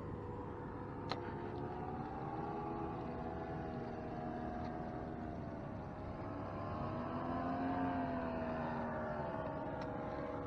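Paramotor engine and propeller droning overhead: a steady hum whose pitch slowly wavers up and down, growing a little louder about seven seconds in.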